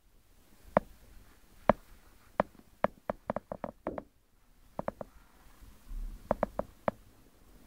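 An irregular series of short, sharp knocks and clicks, bunched most closely about three to four seconds in, over a faint low hum.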